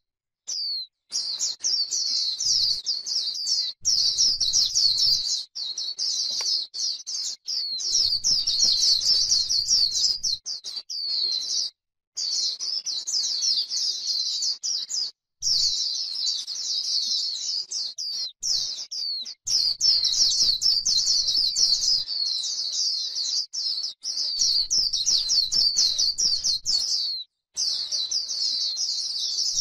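White-eye singing a long, fast, high-pitched twittering song, broken by short pauses every few seconds. It is the 'líu' song style that bird keepers play to rouse white-eyes.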